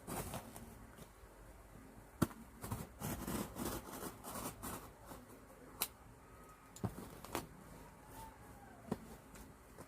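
Hands working open a parcel box: scattered small clicks, scrapes and rustles.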